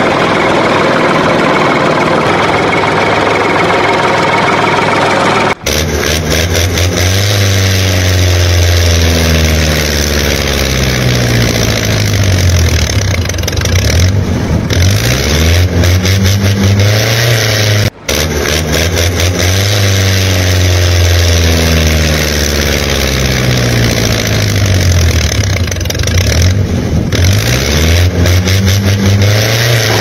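Tractor engine sound effect: an engine running and revving up and down, with a sudden cut about five seconds in to a deeper, steadier engine sound whose revving pattern repeats as a loop. It is laid over a toy tractor, whose own small motor could not make this sound.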